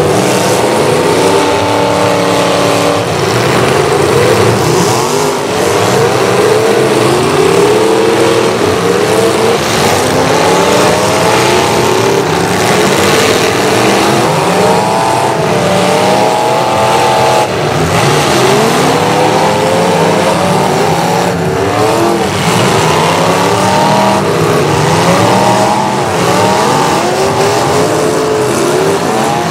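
Several demolition derby cars' engines revving up and down at once, loud and continuous, their pitches rising and falling over one another.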